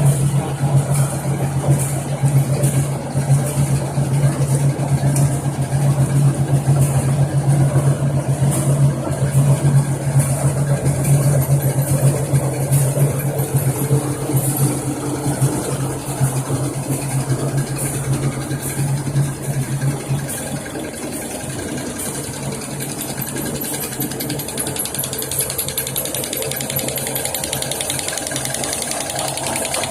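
Plastic drinking-straw making machine running, a steady motor hum over mechanical noise; the hum drops away about twenty seconds in while the machine noise carries on.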